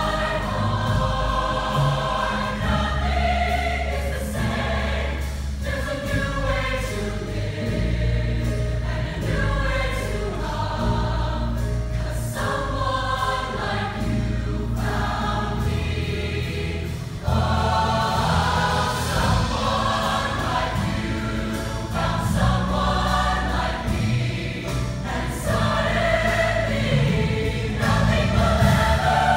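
Large mixed youth show choir singing in parts over a loud accompaniment with a strong bass line. The music gets louder about two-thirds of the way through.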